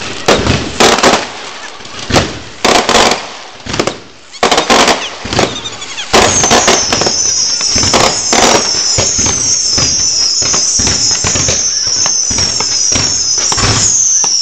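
Fireworks: loud firecracker bangs going off in quick, irregular succession. About six seconds in they give way to a continuous crackling barrage with shrill whistles sweeping down over and over.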